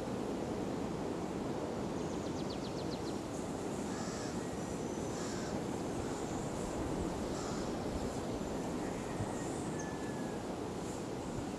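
Steady outdoor rush of wind and sea, with faint, scattered bird calls on top: a quick rattling trill a couple of seconds in and a few short whistled notes later.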